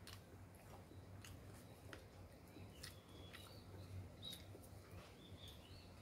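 Faint, scattered clicks and snaps of a knife splitting and peeling fresh stink bean (sator) pods, a few cuts spaced irregularly over the seconds.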